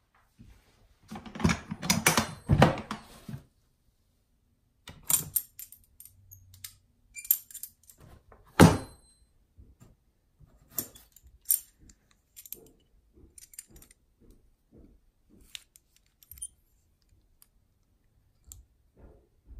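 Small metal objects clattering and clinking as they are handled. A dense clatter of knocks and rattles lasts about two seconds, then scattered clicks and clinks follow, with one sharp metallic clank and a brief ring about eight and a half seconds in.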